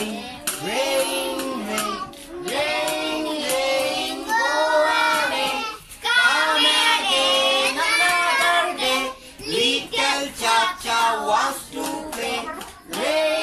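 Children singing a song, in phrases with short breaks between the lines.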